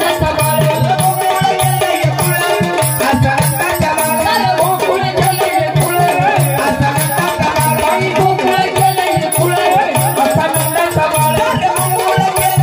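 A woman singing a Marathi gavlan folk song through a PA system, over a fast, steady percussion beat with rattling and a pulsing low drum part.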